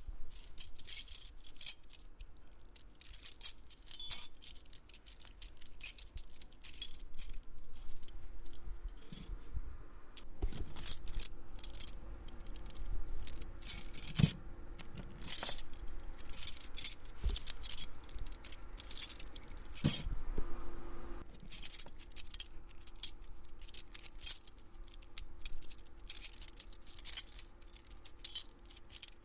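A bunch of metal keys jangling and clinking in repeated irregular shakes, with short pauses about nine and twenty seconds in.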